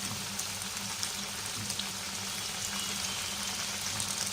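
Crumb-coated chicken pieces deep-frying in hot oil: a steady sizzle dotted with fine crackles and pops.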